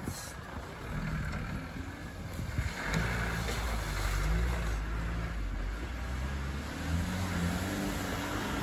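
Land Rover Defender engine running at a low, steady note as the vehicle crawls down a steep, muddy woodland bank. The engine becomes louder and clearer about three seconds in, with a slight rise and fall in pitch.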